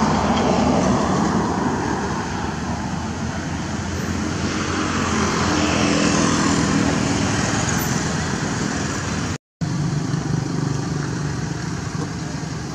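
Road traffic noise, with vehicles passing and the sound swelling twice. The audio cuts out completely for an instant about three-quarters of the way through.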